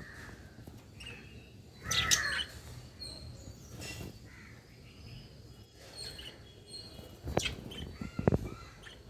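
Lovebirds chirping: scattered short high chirps, with one louder, harsher call about two seconds in. A couple of sharp clicks or knocks near the end.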